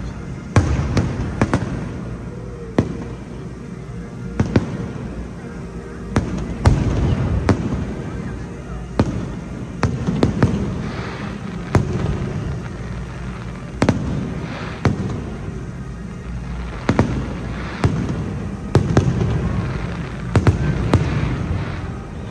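Fireworks display: aerial shells bursting overhead in a steady series of sharp bangs, about one every one to two seconds, with a low rumble and crackle between them.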